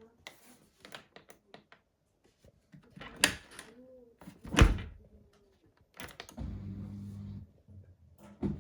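Buckets and a dishwasher being handled: light knocks and clicks, with two louder thunks a few seconds in. About six seconds in a dishwasher's pump starts with a steady hum, breaks off briefly and starts again near the end.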